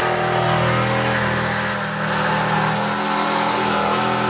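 Black & Decker jigsaw running steadily while cutting through 25 mm thick timber across the grain. It is fitted with a metal-cutting blade, the wrong type for this wood.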